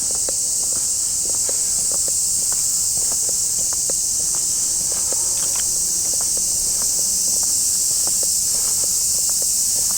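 A steady, high-pitched chorus of cicadas with footsteps crunching along a path at about two steps a second.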